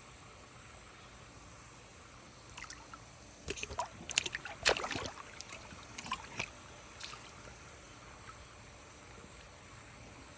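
Water splashing and sloshing as an alligator lunges for food at the surface: a burst of sharp splashes about three seconds in, loudest near the middle, then settling again.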